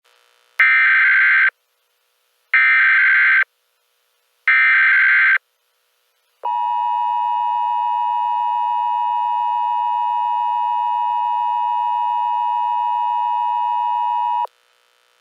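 Emergency Alert System tones: three roughly one-second bursts of SAME header data about two seconds apart, then the steady two-tone EAS attention signal held for about eight seconds and cutting off abruptly.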